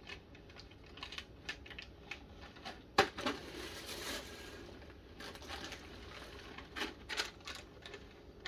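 Snack packages being handled: irregular light clicks and rustling of packaging, with one sharp knock about three seconds in followed by a second of rustling.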